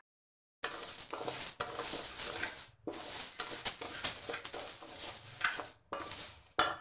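Raw rice grains with cardamom pods being stirred in a dry pan while they roast on high heat: a dry rustling and scraping of grains against the pan. It starts about half a second in and breaks off briefly twice.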